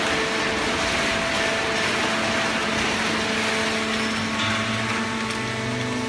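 Fully automatic horizontal hydraulic cardboard baler running: a steady machine noise with several steady hum tones. A lower hum joins about four and a half seconds in.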